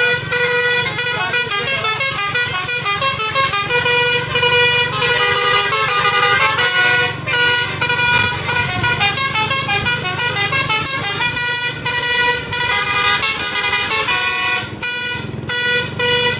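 Tour bus's multi-trumpet musical air horn (telolet basuri) playing a fast tune of short, changing notes, with brief breaks about seven and fifteen seconds in. A steady low engine hum runs underneath.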